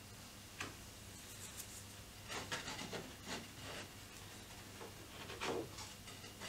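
Loose wooden strips knocking and sliding against each other and the wooden bench top as they are handled and laid out: a light knock just before a second in, a run of clatter and scrapes from about two to four seconds in, and the loudest knock about five and a half seconds in. A faint steady hum lies underneath.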